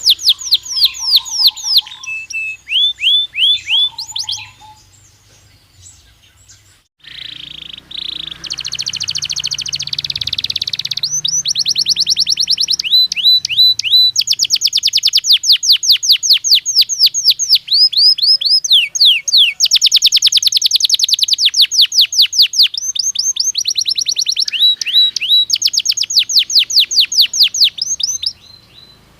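Belgian canary singing in fast rolls of quickly repeated sweeping notes. The song breaks off briefly about five seconds in and turns harsher and buzzier around ten seconds. It then runs into long rapid trills that stop near the end.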